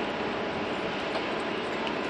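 Steady engine noise, an even roar with a faint hum running under it.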